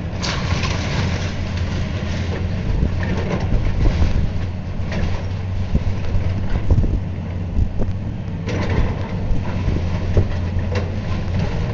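Heavy demolition machine's diesel engine running steadily with a low hum, over scattered cracks and clatter of breaking building debris.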